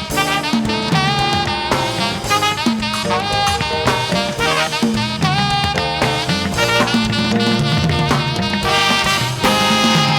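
Upbeat band music with brass and drums playing steadily.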